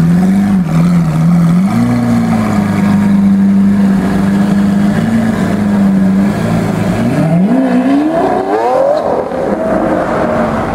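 Lamborghini Aventador LP700-4's V12 engine running at low revs as the car rolls off, then accelerating about seven seconds in, its note rising steeply for about two seconds and holding higher.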